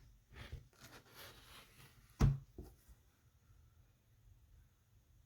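Quiet handling of a children's sound book: a few brief paper or board rustles, then a single soft knock about two seconds in.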